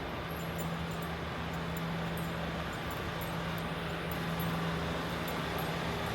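Steady road and engine noise of a moving car, with a low steady hum under it.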